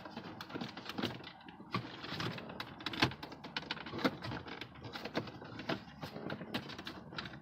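Irregular clicks, taps and knocks of hard plastic dashboard trim and clips being handled and pried at while working loose the gauge cluster.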